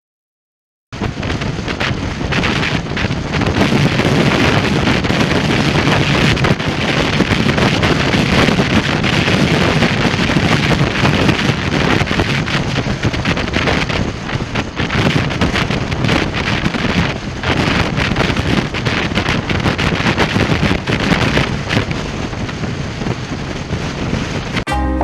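Wind buffeting a microphone on a moving motorcycle, a loud rushing roar that starts abruptly about a second in after a moment of silence.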